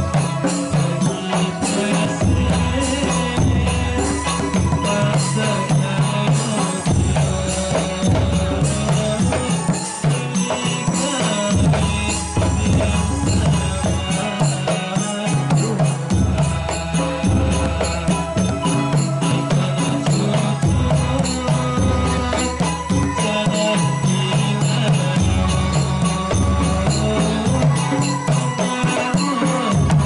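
Javanese Ndolalak folk music: a man sings into a microphone over tambourine-like frame drums and jingles, with a deep drum pattern recurring about every two seconds.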